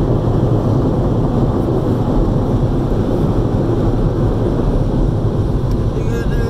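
Steady low rumble inside a car's cabin as the car drives slowly: engine and road noise. A short pitched sound comes near the end.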